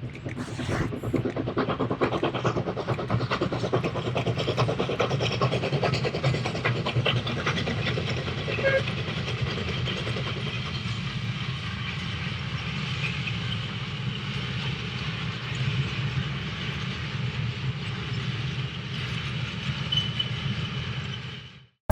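Steam-hauled train running on the rails: a steady rumble with a fast clatter of wheels, busiest in the first half, and a steam hiss. It cuts off suddenly just before the end.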